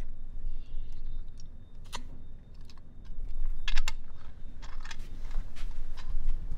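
A few light clicks and taps from a hip flask and phone being handled, the busiest cluster a little over halfway through, over a steady low hum.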